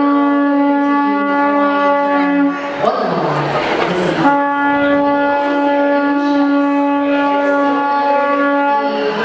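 Conch shell trumpet blown in two long, steady blasts at the same pitch, the second about twice as long as the first after a short break. This is the conch sounding that heralds the start of a Hawaiian luau.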